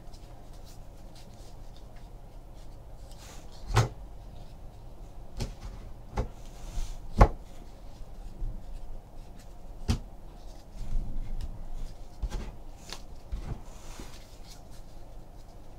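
Trading cards and packs being handled on a tabletop: a series of scattered sharp taps and clicks, the loudest about midway, with a brief rustle about two-thirds of the way through.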